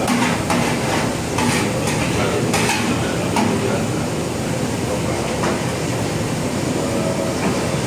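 Steady rumbling noise with scattered short clinks and knocks of metal pots and utensils.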